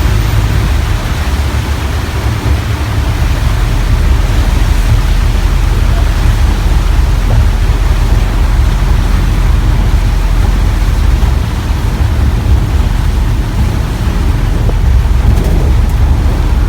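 Steady loud rush of riding in an open songthaew in heavy rain: vehicle and road noise with wind buffeting the microphone in a heavy low rumble.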